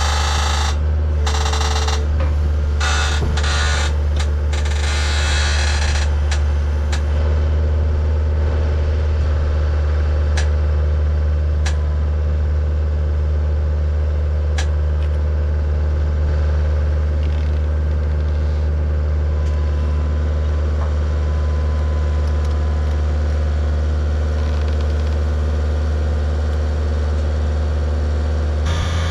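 Skid steer engine running with a steady low drone while it lifts a heavy load on a truss boom. Several short bursts of hiss and clatter come in the first six seconds, followed by a few sharp ticks.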